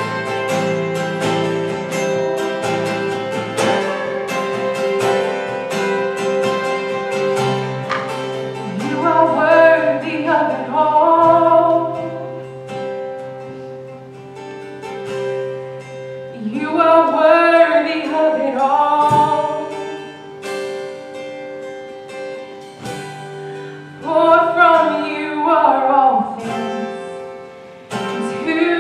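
Live worship band music: a guitar holding steady chords, with a singer coming in with sung phrases about a third of the way in and several more times after.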